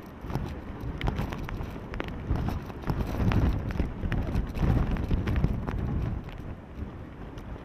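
Super Typhoon Melor's wind buffeting the microphone in heavy gusts, a deep rumble that swells through the middle and eases near the end, with many sharp ticks of wind-driven water drops hitting the camera.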